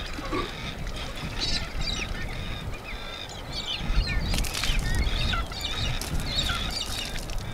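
Birds calling all through, many short squawks and chirps one after another, over a steady low rumble.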